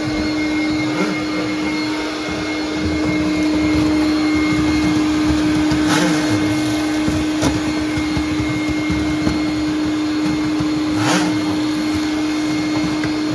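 Duct-cleaning vacuum running steadily with a droning hum, pre-vacuuming the air ducts. Two brief rattles about six and eleven seconds in.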